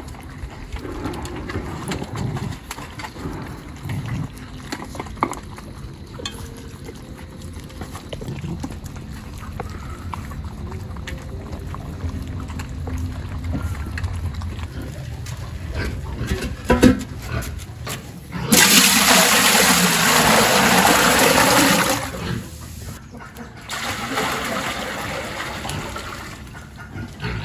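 Puppies eating from plates with small clinks, then near the end water poured from a bucket into a large pot over a wood fire: two loud rushing pours.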